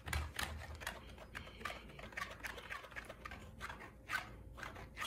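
Cat teaser wand toy flicked and swished over a carpet during play with a cat: quick, irregular light rustles and taps, several a second.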